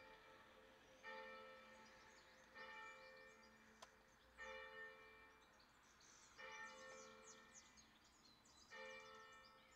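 Faint church bell ringing, struck about five times at intervals of one and a half to two seconds, each stroke sounding a chord of tones that rings on and fades.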